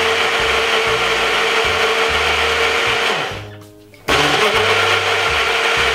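Personal blender motor running, blending melon pieces with water and honey, with a steady whine. About three seconds in it winds down to a stop, then starts again abruptly a second later and keeps blending.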